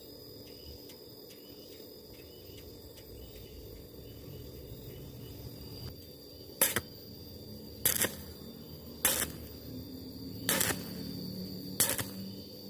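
Stick-welding arc on thin galvanized sheet, struck in short bursts about every second and a quarter in a stitch-welding rhythm, starting a little over halfway in. Before the bursts there is only a faint steady hum with a thin high whine.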